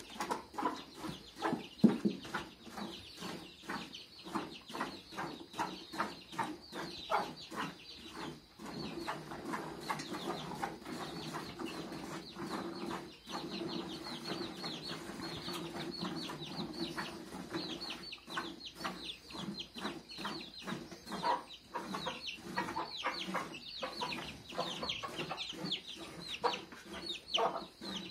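Rhythmic squirts of milk from a cow being milked by hand, about two or three strokes a second, with hens clucking close by.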